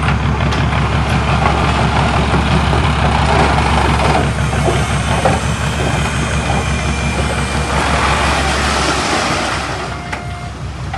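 Heavy earthmoving machine's diesel engine running loud and steady, easing off slightly near the end.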